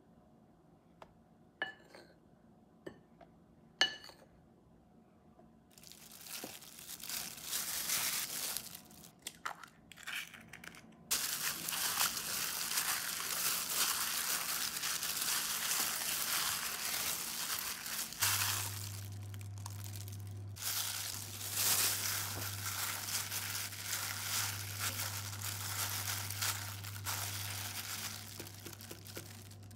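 A few light clinks of a spoon against a glass bowl, then a long run of crinkling and crunching from a thin plastic glove as a hand works chicken wings through batter and presses them into a dry flour coating. A low steady hum comes in a little past halfway.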